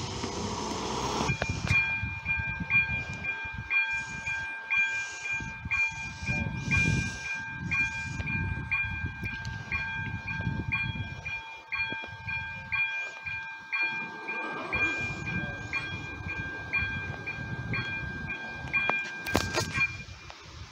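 Railway level-crossing electronic warning bell ringing in a steady, regular rhythm, starting about a second in: the crossing is activated for an approaching train. Near the end, a few sharp knocks come as the barrier arms settle down, and the bell then stops.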